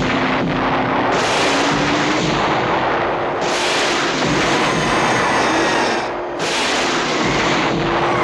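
Continuous rapid gunfire from a multi-barrel rotary machine gun, a dense unbroken rattle that eases briefly about six seconds in. A steady low drone runs underneath, rising slowly in pitch.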